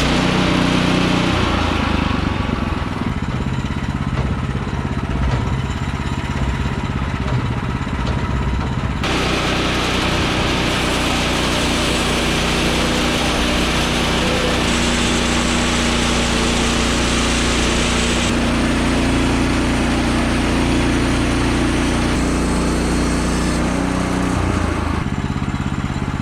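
Portable bandsaw sawmill's petrol engine running steadily. From about nine seconds in until near the end, a louder rushing hiss rides over the engine.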